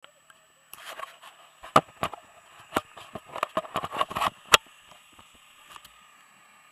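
Handling noise on a helmet camera: a hand knocking, tapping and rubbing against the camera and helmet, a quick run of sharp knocks with scuffing between them, stopping a little over halfway through and leaving faint hiss. The motorcycle engine is not running.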